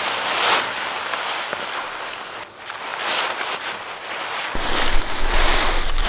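A camping tarp rustling and flapping in swells as it is hung over branches and caught by the wind. From about four and a half seconds in, wind gusts rumble on the microphone.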